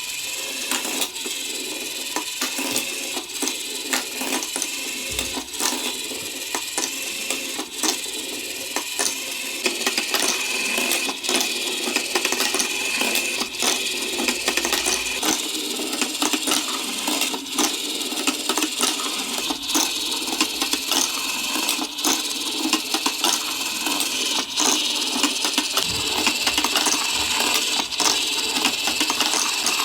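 Marbles rolling and clattering along a block marble run: a continuous, dense clatter of small hard clicks, growing a little louder after about ten seconds.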